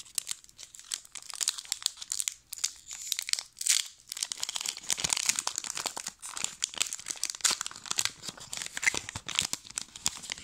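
Pokémon trading cards being shuffled and flicked through by hand: a dense run of quick papery clicks and rustling.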